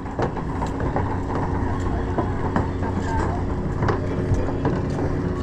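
A steady low mechanical hum, as from an engine or generator running, with a few scattered light knocks.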